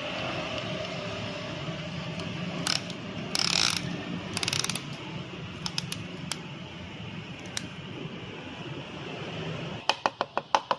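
Hand ratchet wrench clicking, with a quick run of sharp clicks at about six a second near the end, over a steady hiss and a few brief scraping noises earlier.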